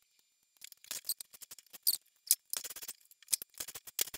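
Ratchet wrench clicking in quick, irregular runs while tightening a threaded 1/2-inch pipe nipple into the top of a plastic sprinkler valve held in a vise.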